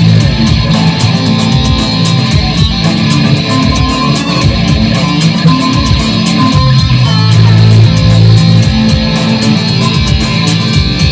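Electric guitar played through effect stomp boxes: heavy riffing, with held low notes that return a couple of times and fast picked notes in between.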